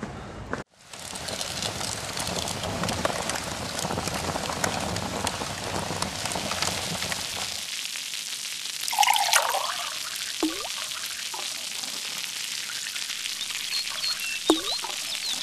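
Rain pattering, a steady hiss full of small drop clicks. Around nine seconds in a bird gives a loud call, and short bird chirps come near the end.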